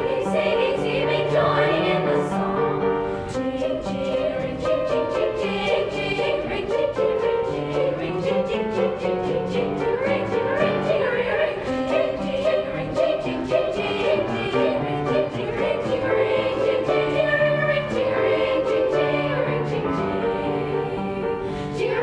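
Eighth-grade girls' choir singing in several parts, accompanied by an upright piano.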